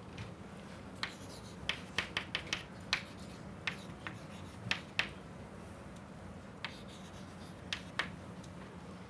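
Chalk writing on a chalkboard: about a dozen sharp, irregular taps and clicks of the chalk striking the board as symbols are written, over a steady low room hum.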